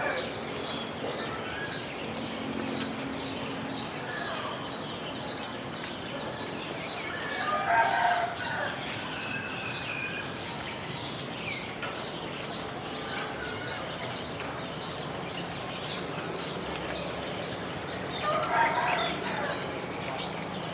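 Village ambience after rain: a rooster crows about 8 seconds in and again near the end, over an even run of short high chirps about twice a second and a constant high-pitched whine.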